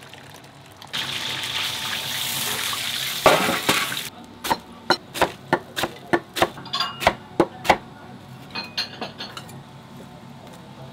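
Restaurant kitchen work: water runs from a tap for about two seconds and stops with a loud clatter, then come about a dozen evenly spaced knocks, about three a second, and a few lighter clinks of dishes and utensils.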